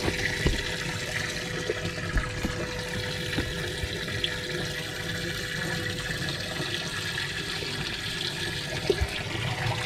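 Bass boat livewell pump running, water spraying and pouring into the well with a steady motor hum under it.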